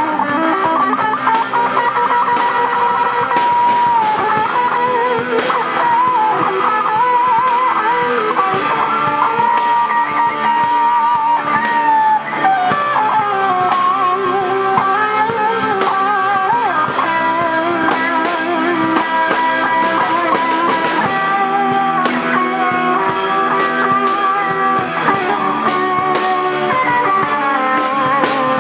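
Electric guitars playing instrumental music: a lead guitar melody with sustained, bent and vibrato notes over strummed rhythm guitar.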